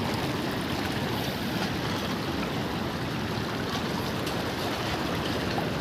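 Steady rushing of water, like a monsoon-swollen hill stream, an even noise that does not change.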